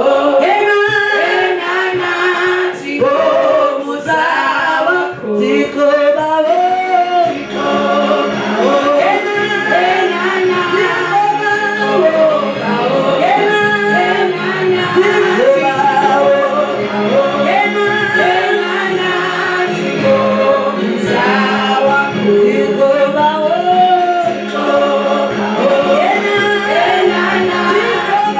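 Gospel choir singing a worship song, several voices together with continuous melodic lines; a steady low note is held underneath from about a quarter of the way in.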